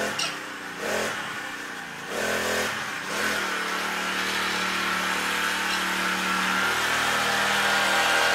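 Small motor of a motorised ride-on esky (cooler scooter) running as it is ridden along. The note changes pitch a few times in the first three seconds, then holds a steady hum.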